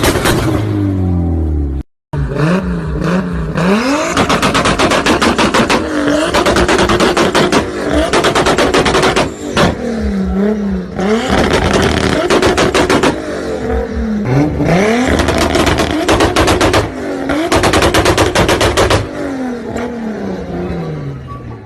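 Sports car engines revved hard again and again, the pitch rising and falling with each blip, with rapid volleys of crackles and pops from the exhaust as it backfires between revs. The sound drops out for a moment about two seconds in, where one clip cuts to the next.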